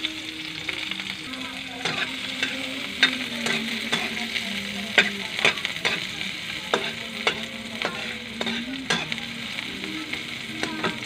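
Chopped garlic and onion sizzling in hot oil in a pan while a metal spatula stirs them, scraping and clicking against the pan many times at an uneven pace.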